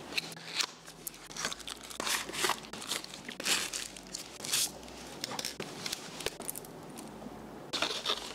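Paper and plastic packaging rustling and crinkling in irregular bursts as a dash cam and its cables are unpacked from a box.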